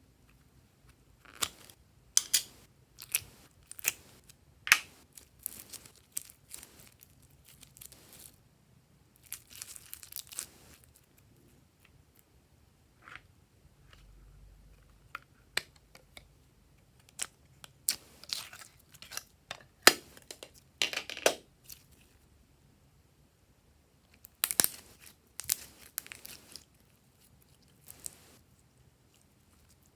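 Glossy slime being stretched, squeezed and folded by hand, giving irregular sticky pops, crackles and tearing sounds with a few short pauses.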